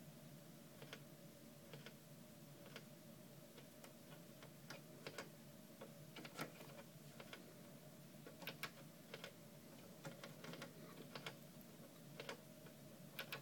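Near silence: faint, irregularly spaced clicks and ticks over a low steady hum.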